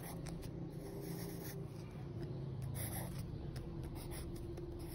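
Wooden graphite pencil scratching on paper in short irregular strokes as lines and numerals are drawn, over a faint steady low hum.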